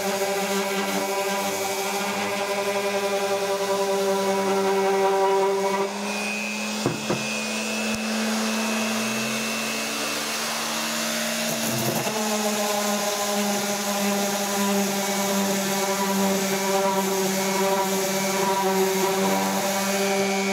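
Electric random orbital sander running steadily against cedar posts: a steady motor hum with a rasping sanding hiss. The hum thins out between about six and twelve seconds in, with a knock at each end of that stretch.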